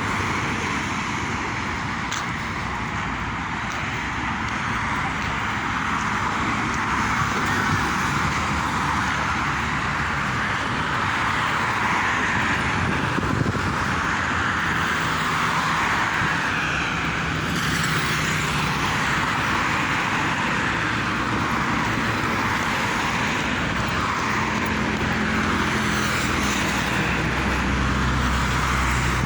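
Steady road-traffic noise, with the low engine hum of passing motor vehicles coming in about halfway through and again near the end.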